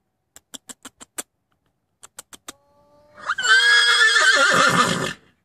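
Horse whinnying, one loud, wavering call of about two seconds in the second half. A few sharp clicks come before it.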